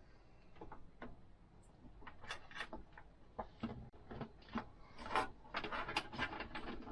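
PC power cables and plastic connectors being handled: a run of light clicks and rubbing that grows denser about five to six and a half seconds in, as a SATA power lead is fitted to the SSD.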